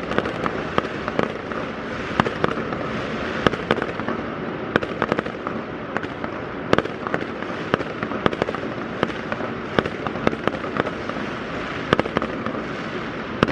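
Fireworks going off continuously: a steady wash of crackling and booming, with many sharp cracks and bangs scattered irregularly throughout.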